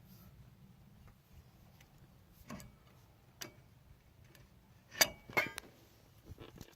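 Sparse metallic clicks and clinks from a manifold/header spreader being turned against a rusted-on wheel bearing hub to force it off the steering knuckle. A few faint ticks come about a second apart, then two louder clinks about five seconds in, the second ringing briefly.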